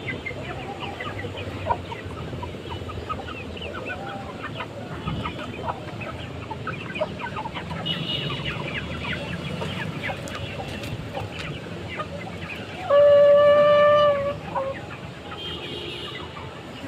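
Birds calling: many short calls throughout, then one loud, long, level-pitched call lasting about a second, about 13 seconds in.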